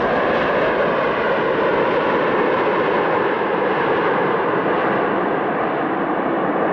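Airliner jet engine noise: a loud, steady rush with faint whining tones, its upper edge easing slightly near the end.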